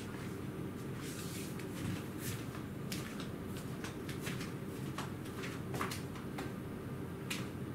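Steady low room hum with scattered short clicks and rustles.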